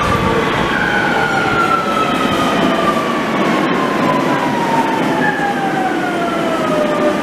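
Metrovalencia electric metro train pulling into an underground station and slowing, its whine falling steadily in pitch over the rumble of the wheels; a second falling whine joins about five seconds in.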